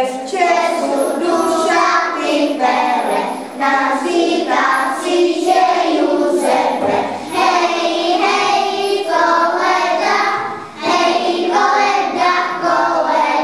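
A group of young children singing a song together, with held notes and a short break between phrases about eleven seconds in.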